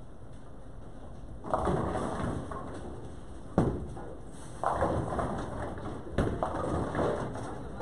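Bowling balls striking pins, with pins clattering, several times over. The loudest is a sharp crash about three and a half seconds in, with other crashes about a second and a half in, near five seconds and just after six seconds.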